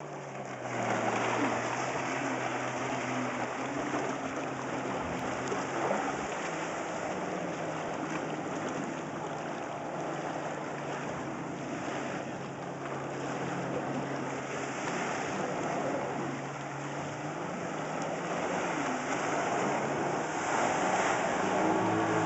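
Jet ski engine running steadily, over a constant rush of water and wind noise.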